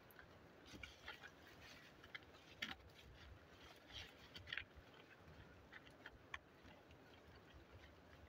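Faint, scattered scrapes and small ticks of a hand brushing over loose soil and handling a plant stalk, a few louder ones about a third and halfway through.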